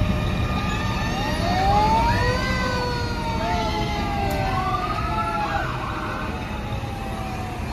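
Fire truck sirens wailing, several overlapping: their pitch rises about a second and a half in and then slowly falls. Underneath is a steady low rumble from the passing fire trucks.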